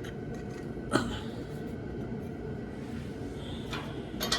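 Hand tools working on a small engine's points cover: one sharp metal click about a second in and a few lighter clicks and taps near the end, over a steady low hum of background noise.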